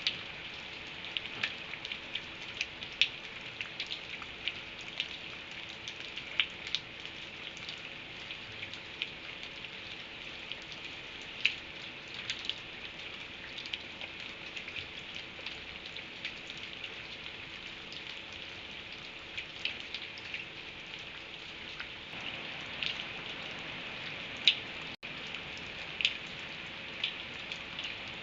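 Steady rain falling, with many individual drops ticking sharply and irregularly on a hard surface.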